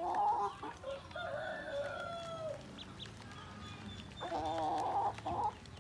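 Chickens calling: a short call at the start, a long drawn-out call in the middle that drops slightly at its end, and a wavering squawk a little after four seconds in.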